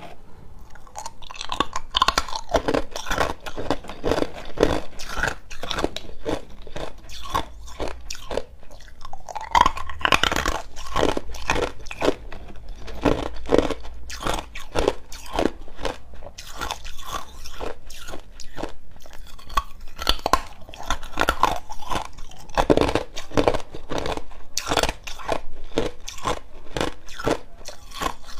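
Clear ice chunks being bitten and chewed, crunching and cracking between the teeth in a quick, unbroken run of sharp cracks.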